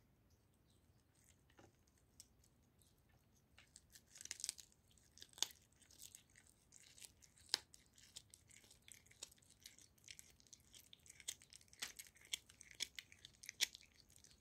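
A domestic cat chewing raw goose neck, with wet tearing and crackling and sharp crunches of its teeth. It starts about three and a half seconds in, after a quiet start.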